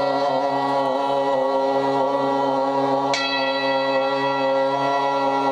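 Meditation music: a steady, unchanging drone of held tones, with a bell struck once about three seconds in.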